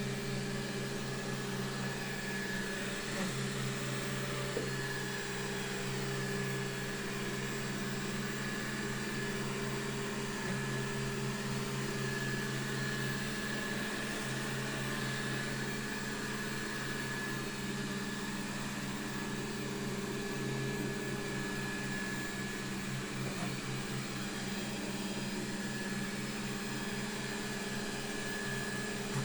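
Xiaomi Mi Robot Vacuum Mop 2 running as it cleans: a steady hum from its suction fan and drive motors, with a thin high whine over it.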